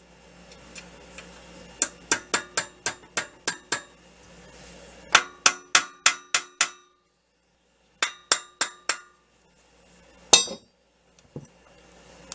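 A hammer tapping a steel key along the keyway of a shaft, sharp metallic strikes with a short ringing note, about four a second. They come in runs of about eight, seven and four, with one louder strike near the end.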